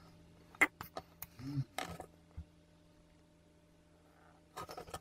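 Light clicks and knocks from a plastic oil jug as engine oil is poured through its spout into the engine's filler neck, mostly in the first two seconds and again briefly near the end, over a faint steady hum.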